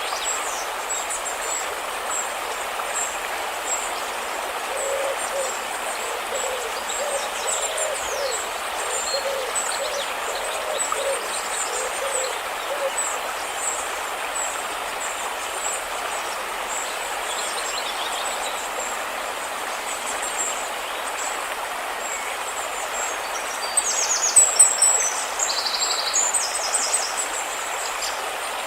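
River water rushing steadily, with birds calling over it: thin high chirps throughout, a low call repeated about once or twice a second for several seconds, and a louder burst of high calls near the end.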